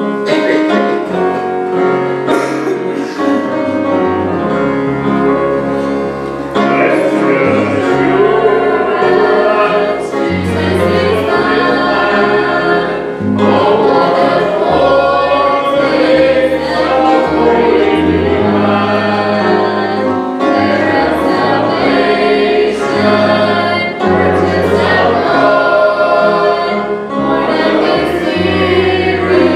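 A church choir singing a hymn together, accompanied by acoustic guitar over a steady bass line; the music starts suddenly at the beginning.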